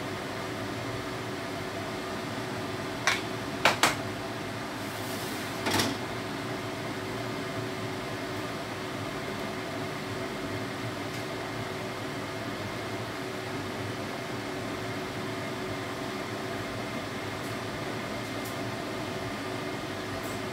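Steady mechanical hum of a kitchen appliance or fan, with a few faint fixed tones in it. Three sharp clicks come about three to four seconds in, and a louder click with a short hiss comes near six seconds.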